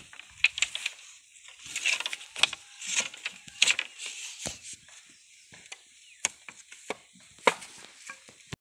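Split bamboo strips and bamboo poles knocking and clacking as they are handled and laid across each other, a string of irregular sharp clacks with some scraping in between.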